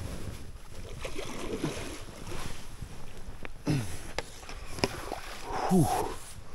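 Water splashing and sloshing as a large carp is brought in at the bank, with a man breathing hard after the fight. Two short sounds falling in pitch come about four and six seconds in.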